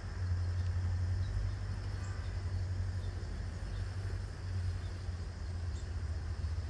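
Outdoor background: a steady low rumble with a faint, steady high-pitched hum above it.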